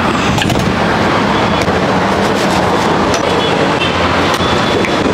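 Steady rumble and hiss of roadside traffic, with a few light clinks of steel utensils on top.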